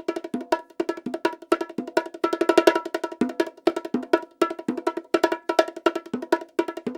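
Bongos struck by hand in a quick rhythmic pattern, each stroke ringing briefly at the drums' pitch, with a dense flurry of strokes about two and a half seconds in.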